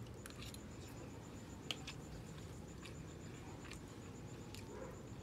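Close-miked chewing of a mouthful of rice and sweet bell peppers: soft wet mouth clicks and small crunches scattered through, with one sharper click about a second and a half in.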